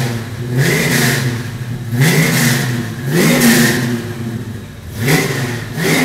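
GM 502 cubic-inch big-block V8 crate engine breathing through ceramic-coated headers and a Flowmaster stainless dual exhaust, revved in short blips about five or six times, each climbing and falling back to a lumpy idle between.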